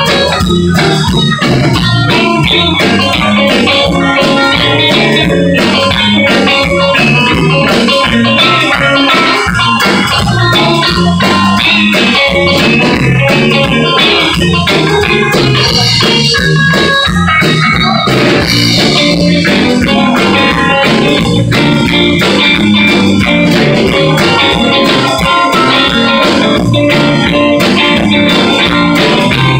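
Live blues band playing an instrumental passage: electric guitars and organ over a steady beat.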